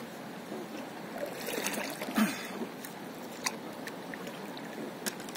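Water lapping and trickling around a stand-up paddleboard, with a louder paddle splash about two seconds in and two light clicks later.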